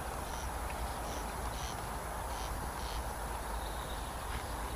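Steady outdoor noise with a low rumble, and a series of faint short high chirps in the first three seconds.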